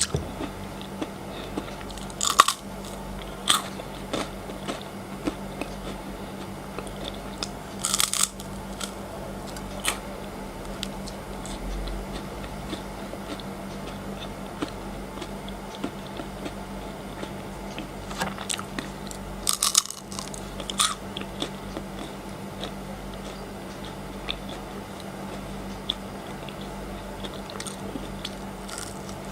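Frozen chocolate being bitten and chewed close to the microphone: crisp crunches come at irregular moments, with a few sharp bites loudest, and softer chewing clicks between.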